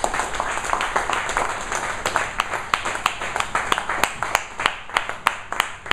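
Small audience applauding at the end of a speech, a dense patter of hand claps. In the second half a few louder claps stand out at a steady three or so a second.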